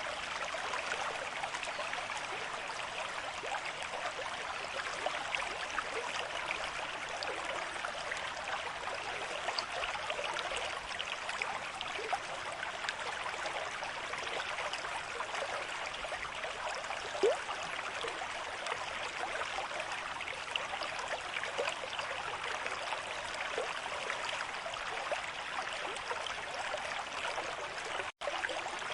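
River stream flowing at a moderate pace, a steady rush of water with small splashes and trickles. One slightly louder splash comes about 17 seconds in, and the sound cuts out for an instant near the end.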